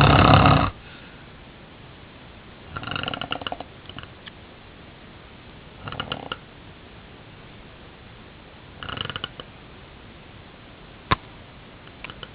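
A man snoring in his sleep: one loud snore at the start, then three shorter, quieter snores about three seconds apart. The sleeper believes his snoring comes with sleep apnea. A single sharp click sounds near the end.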